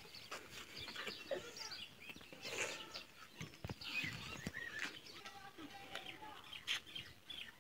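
Faint outdoor ambience of small birds chirping, with distant voices and a goat bleating now and then, and a few light knocks.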